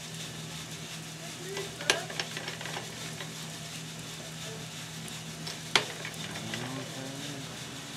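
Drum coffee roaster running with a steady hum and hiss, with light crackling. Two sharp metal clacks, one about two seconds in and one near six seconds, as the sample trier is drawn out of the roaster and slid back in.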